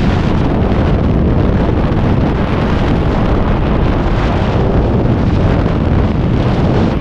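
Freefall airflow buffeting a jumper-worn camera's microphone: a steady, loud wind roar, heaviest in the low end.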